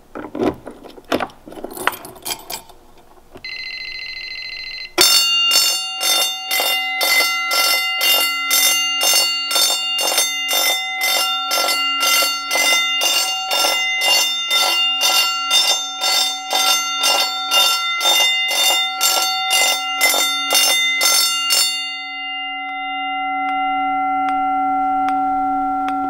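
Key clicks at the annunciator and a short steady electronic tone, then a Gentex GB10-24 10-inch fire alarm bell rings in March time coding, pulsing about twice a second, after the fire drill button is pressed. The bell stops about four seconds before the end, leaving a steady ringing tone.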